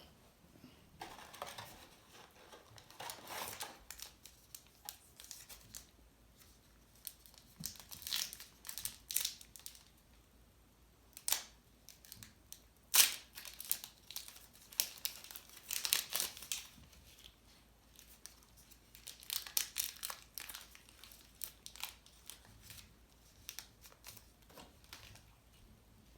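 A baseball card pack wrapper being torn open and crinkled, with cards handled, heard as a run of short, irregular rustles and snaps. A sharp snap about halfway through is the loudest.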